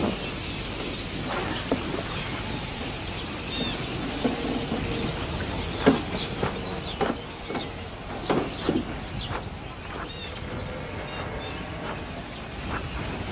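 Steady outdoor ambience: an even hiss with a constant high-pitched band over it, and scattered knocks and taps, most of them in the middle stretch.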